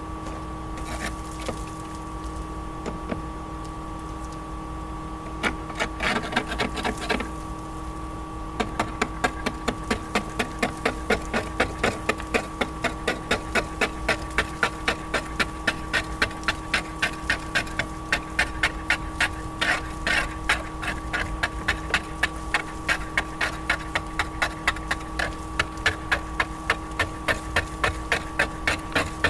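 A scraper working rapidly over the stucco where the old garage-door weather strip was, cleaning it smooth: short rhythmic scraping strokes about two to three a second, starting after a rougher patch of scraping, over a steady hum.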